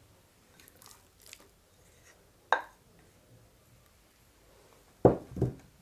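Silicone spatula working soft cream cheese into a glass mixing bowl: faint soft scrapes, one sharp ringing clink of glass about two and a half seconds in, and two dull knocks near the end.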